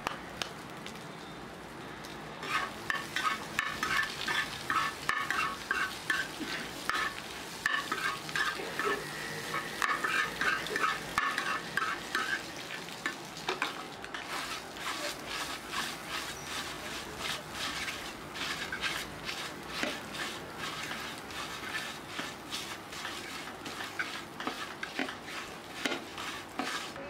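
Metal spatula chopping and scraping boiled-egg and cabbage filling on a hot flat griddle: fast, repeated clanking strikes of metal on metal over a steady frying sizzle. The strikes start about two seconds in.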